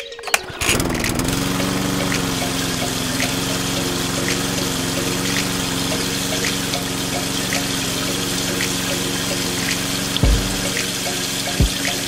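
A miniature electric water pump, run by a small DC motor, is switched on with a click, spins up and settles into a steady whine, with water splashing from its tube. A few low thumps come near the end.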